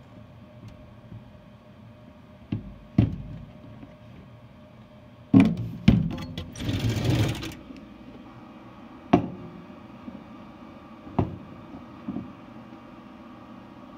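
A series of sharp knocks and bumps, seven or so spread unevenly, with a burst of rustling about seven seconds in, over a steady low hum.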